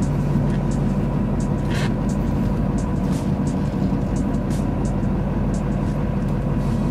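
Steady drone of a 2004 Duramax LLY 6.6-litre V8 turbo-diesel pickup, heard from inside the cab while driving.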